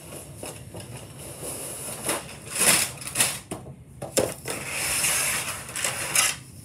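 Hot Wheels 20-pack packaging being handled and torn open: irregular crinkling and ripping, with the loudest rips about two and a half to three seconds in and a longer rustle around five seconds.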